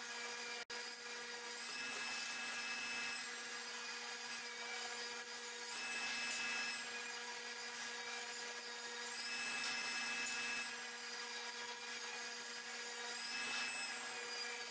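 Table saw running steadily as it rips an ash board along the fence: a constant hum under the noise of the blade cutting the wood. The sound drops out for an instant less than a second in.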